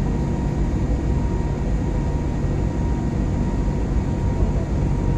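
Steady cabin noise inside an airliner in flight: the even roar of the engines and airflow, with a thin steady tone running through it.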